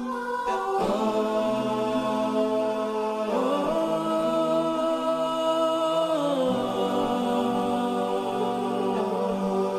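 Slow, ambient new-age background music of long held chords, which shift to new chords about three seconds in and again past six seconds.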